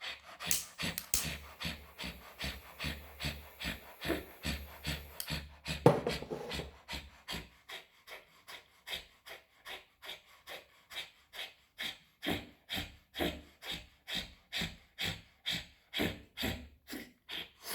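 Kapalbhati pranayama breathing: quick, forceful exhalations pushed out through the nose in a steady rhythm of about two a second, with one stronger snort about six seconds in.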